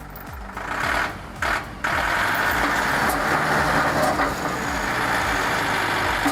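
A powered machine's engine running steadily under load as a loud, even roar, briefly dipping twice early on. Background music plays underneath.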